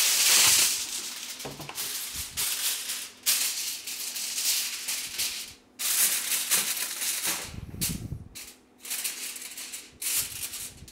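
Hot cooking oil crackling and spitting in a frying pan, a loud, dense, irregular crackle that drops out briefly a few times.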